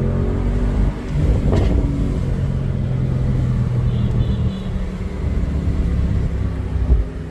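Mercedes-AMG SL55's V8 exhaust running at low revs, with one sharp pop about a second and a half in and a brief louder blip near the end.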